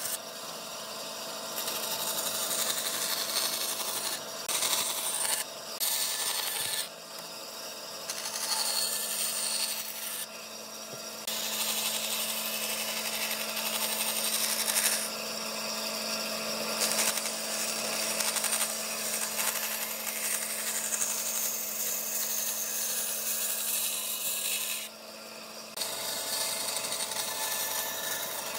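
Bandsaw running with a steady hum while its narrow blade cuts curves in a pine board. The hiss of the cut breaks off briefly several times and then comes back.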